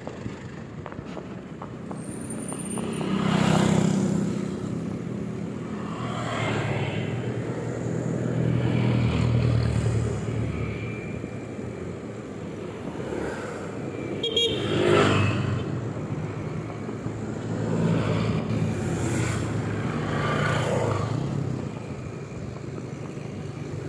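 Road traffic with cars and motorcycles passing close by. Engine and tyre noise swells and fades several times over a steady low engine hum.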